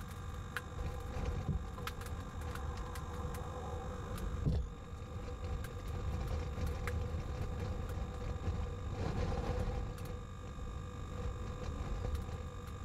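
Wind rumbling on the microphone in tornado-storm conditions, with scattered sharp ticks and a faint steady hum underneath; a brief louder gust about four and a half seconds in.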